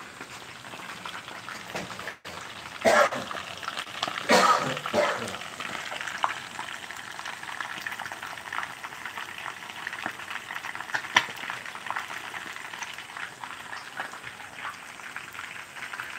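Pieces of fish frying in hot oil in a skillet: a steady crackling sizzle with many fine pops, and two louder bursts about three and four and a half seconds in.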